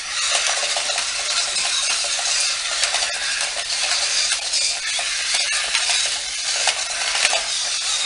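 Radio-controlled toy fighters' battery-powered bases whirring as they spin on their wheels across a tile floor, with a steady stream of sharp plastic clicks and clacks as the figures' arms and legs swing and strike. The noise starts suddenly and holds steady.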